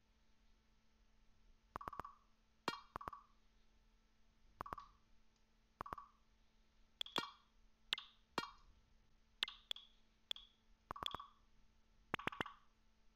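Tickstrike's market alert sounds: about a dozen short electronic blips, each starting with a sharp click and spaced irregularly. Some sit at a lower pitch and some at a higher one, the tool's audible cue for ticks in the markets it is watching.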